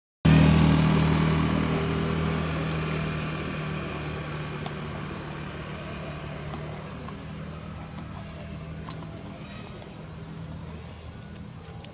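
Motor vehicle engine, loud as it passes close by, then fading steadily as it drives off.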